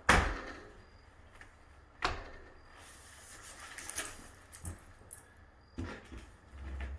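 Window sash being tilted out and lifted from its frame: a sharp knock at the start and another about two seconds in, then lighter clunks and rubbing of the sash against the frame.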